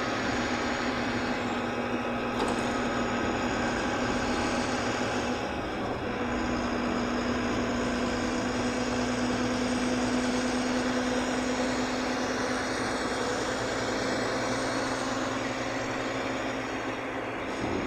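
Volvo B9R coach's six-cylinder diesel engine and road noise, heard from inside the cabin while cruising along the road. It is a steady drone that grows a little stronger about six seconds in and then holds.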